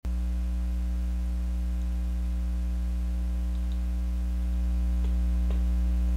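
Steady electrical mains hum on the recording, with two faint mouse clicks about five seconds in.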